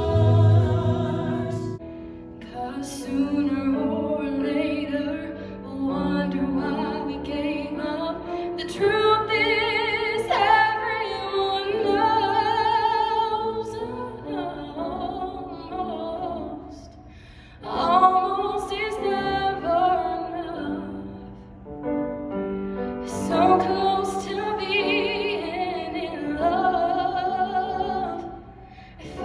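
A woman singing solo with vibrato, accompanied by grand piano. It opens on the tail of a choir's held chord, which stops about two seconds in.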